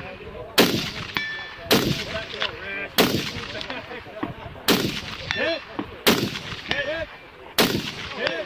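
Rifle fired six times in slow, aimed succession, a shot every second and a half or so. Most shots are followed about half a second later by the faint ring of a steel target being hit downrange.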